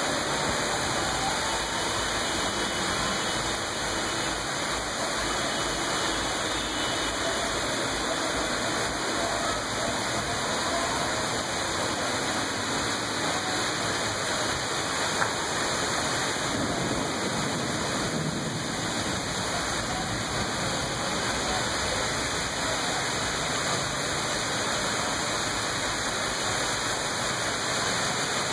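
Heavy rain pouring down steadily, a dense even hiss of rainfall with no break.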